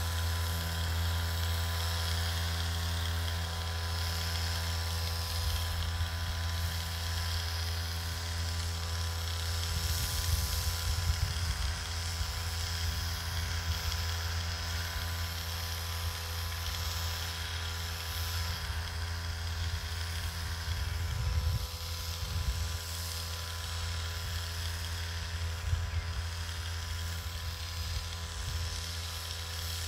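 Small motor running steadily with a low, even hum.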